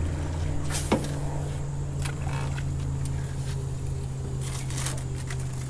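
A small electric motor humming steadily at a constant pitch, with one sharp click about a second in.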